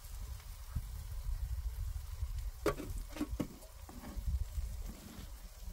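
Food frying in a pan over a gas stove, faint sizzling under a steady low rumble, with a few metal clinks about three seconds in as a steel ladle knocks against a metal oil tin.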